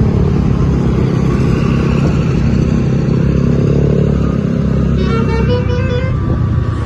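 Bus engine running close by, loud and steady. About five seconds in, a multi-tone telolet horn plays a short run of stepped notes.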